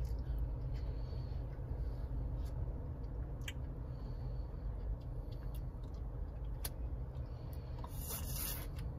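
Steady low hum inside a car's cabin, with a few faint wet mouth clicks from a child licking a popsicle and a brief louder sucking sound near the end as she puts it in her mouth.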